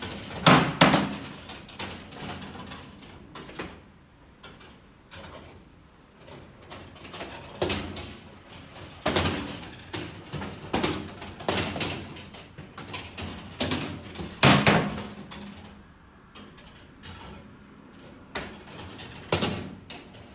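Balls running through a binary-adder marble sculpture of brass tracks and 3D-printed joints. They make irregular clacks and knocks as they roll along the brass rails and trip the switches, with a few louder strikes spread through, one ringing briefly about two-thirds of the way in. The clatter is the carry cascading stage by stage as 1 is added to 15.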